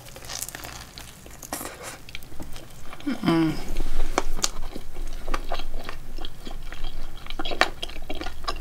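A person chewing a bite of French toast with whipped cream: wet mouth sounds with many small clicks. About three seconds in comes a short hummed "mm".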